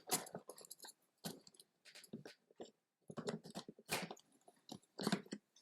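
Small plastic toy chairs being worked loose from their box packaging: irregular crinkles, clicks and scrapes of plastic and cardboard in short clusters.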